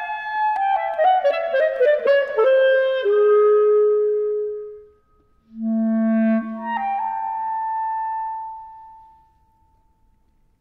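Solo clarinet playing a fast descending run of notes that settles on a held note and fades. After a brief pause comes a low note that leaps up to a high held note and dies away, leaving near silence for about the last second.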